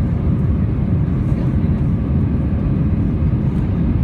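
Steady cabin noise inside an Airbus A320 climbing out after takeoff: the engines and rushing air blend into an even, deep rumble.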